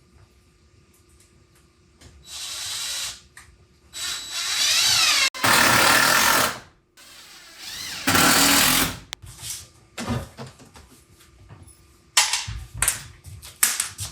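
Power drill running in four short bursts, its pitch rising and falling as the trigger is worked, followed by a few sharp clicks near the end.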